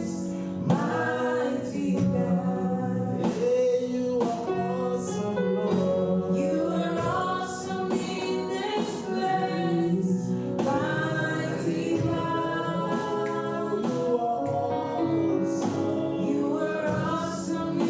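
Gospel worship music, with voices singing sustained notes over the accompaniment.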